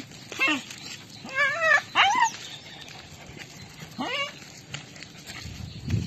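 Small dogs on leashes whining and yipping: four short, high calls that waver in pitch, over the first four and a half seconds.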